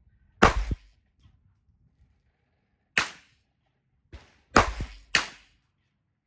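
Canik METE MC9L 9mm pistol being fired: four sharp shots at uneven intervals, the last two about half a second apart, with a fainter report between the second and third.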